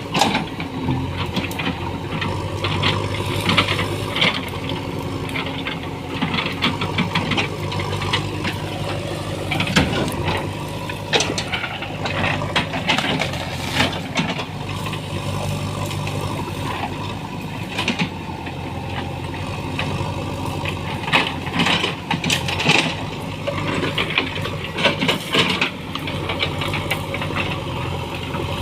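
JCB backhoe loader's diesel engine running steadily while working, with frequent sharp cracks and knocks over it.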